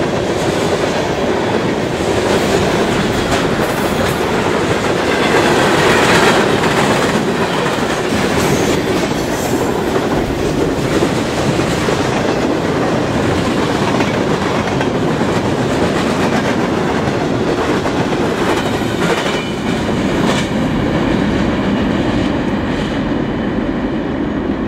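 Freight train cars rolling past at speed: a steady rumble of steel wheels with clickety-clack over the rail joints, easing slightly near the end as the last car goes by.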